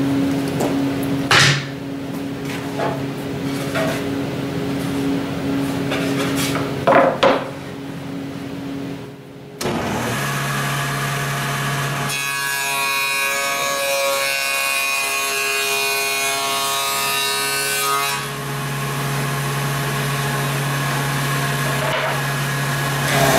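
Table saw with a stacked dado blade running steadily, with two sharp knocks in the first seven seconds. From about twelve to eighteen seconds the dado blade cuts a quarter-inch groove along a plywood board, then the saw runs on.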